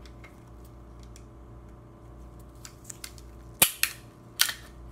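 Taurus G2C pistol being field-stripped by hand: a few faint ticks, then three sharp clacks of metal and polymer, two close together and one about half a second later, as the slide is worked off the frame.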